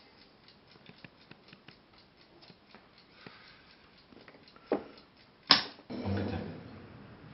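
Light, quick ticking and clicking, then two sharp clicks a little under a second apart, the second the loudest, followed by a rustling noise.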